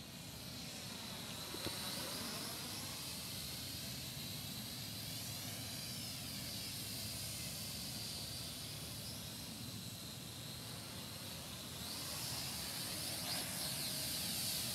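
Small RC quadcopter's electric motors and propellers whining in flight. The steady high whine has a swirling, phasing tone as the drone moves, and it grows a little louder near the end as the drone comes down low.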